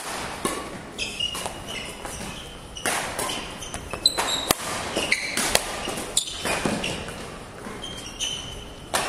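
Badminton play: repeated sharp racket strikes on the shuttlecock, with short high squeaks of court shoes between them.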